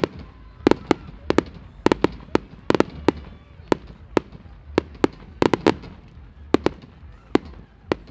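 Low-noise fireworks going off: a run of sharp pops and cracks at irregular intervals, two or three a second, with no big booms.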